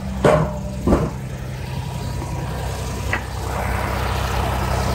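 A large engine idling steadily, with two sharp knocks about a third of a second and a second in.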